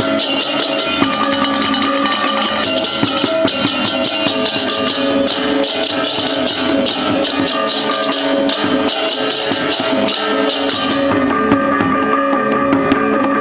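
Balinese gamelan music accompanying an ogoh-ogoh performance: held metallic tones with drums and dense, fast cymbal strokes. The cymbal strokes thin out about eleven seconds in while the tones continue.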